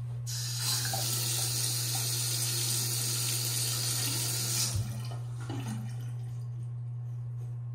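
Water running from a two-handle faucet into a stainless-steel sink, cold only because the hot side gives no water. The flow is shut off about four and a half seconds in, followed by a soft knock.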